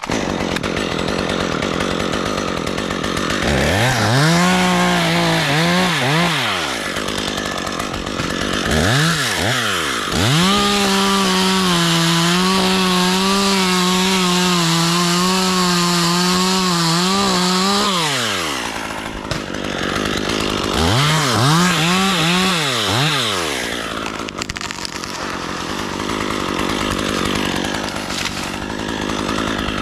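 Two-stroke chainsaw revved in a few quick bursts, then held at full throttle for about eight seconds, then revved a few more times, running lower between revs.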